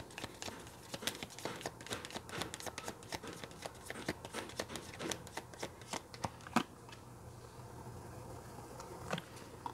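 Deck of tarot cards being shuffled by hand, a quick run of soft card clicks that stops about six and a half seconds in.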